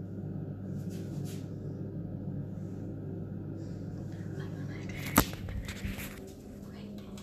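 A steady low hum, with a single sharp knock about five seconds in followed by rustling as the phone is handled and swung around.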